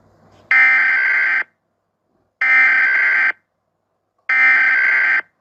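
Emergency alert attention tone: an electronic alarm buzz sounding three times, each buzz about a second long and about two seconds apart, the signal that an emergency announcement follows.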